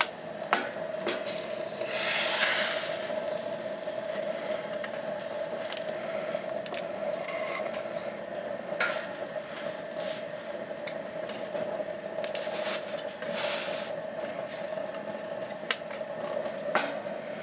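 Small DC blower of a wood-pellet burner running slowly at low voltage with a steady hum, under scattered clicks and scrapes of a wooden pizza peel and metal tongs. Two longer scraping rushes come about two seconds in and again about thirteen seconds in.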